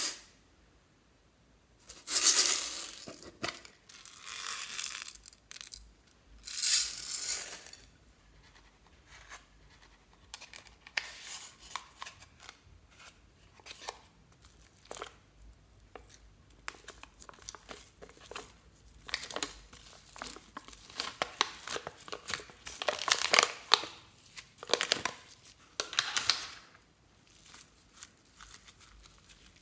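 Glossy slime being peeled out of plastic containers and worked by hand. Three long crackling, tearing stretches come in the first several seconds, then many small sticky clicks and pops.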